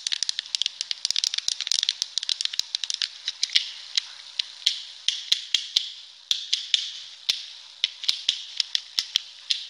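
Fidget cube clicking under the thumbs: sharp, irregular plastic clicks, quick and dense for the first few seconds, then spaced out to two or three a second.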